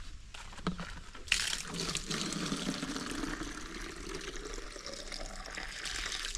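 Water running into a container, starting about a second in, with a note that rises steadily in pitch as the container fills.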